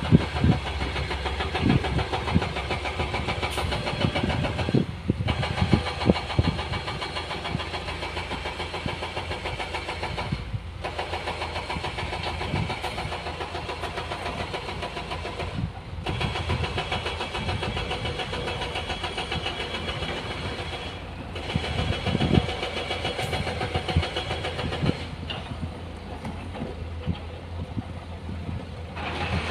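Diesel dump truck engine running steadily as the truck pulls away across the dirt, with low thumps mixed in. The sound drops out briefly about every five seconds.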